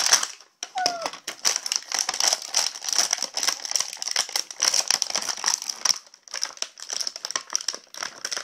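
Clear plastic toy packaging crinkling and crackling as it is handled and pulled at to free the toy inside. The crackles come in an irregular run, with a couple of short pauses near the end.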